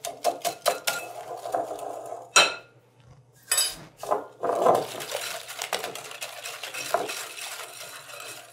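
Wire whisk beating eggs and sugar in a glass mixing bowl: quick strokes with the wires clicking and scraping against the glass, and a couple of louder clinks near the middle.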